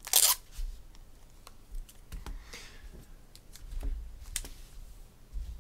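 Handling at a desk: a short rustling burst right at the start, then scattered light clicks and taps.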